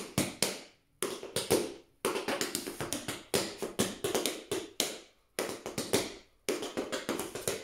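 Tap shoes striking the floor in quick rhythmic phrases: clusters of sharp taps, each cluster lasting under a second, with brief pauses between them. It is the time-step combination danced at a faster tempo.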